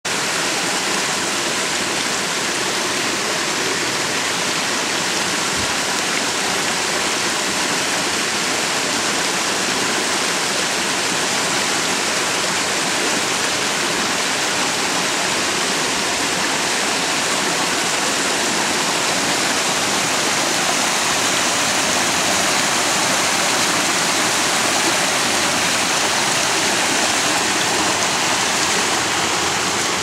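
Waterfall pouring down a rock face, a steady rushing and splashing of falling water that does not change throughout.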